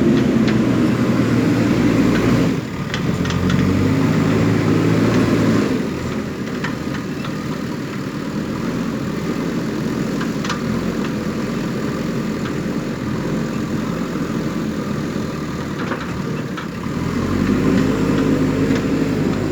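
JCB backhoe loader's diesel engine running and working under load. It runs harder near the start and again near the end, settling to a lower, steadier level in the middle, with a few faint clanks.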